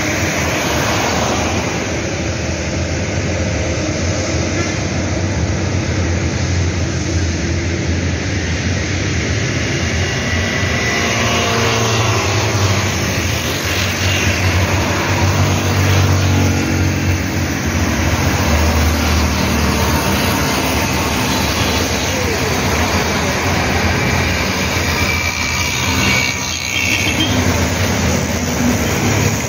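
Heavy road traffic driving past close by: trucks and a bus with their engines running and tyres on the road, a steady rumble that swells as vehicles pass.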